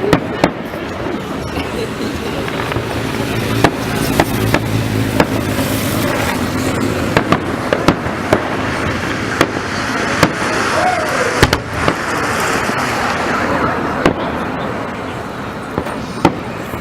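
Fireworks salute: shells bursting in a string of sharp bangs over a continuous rumble of noise. The loudest bang comes about two-thirds of the way through.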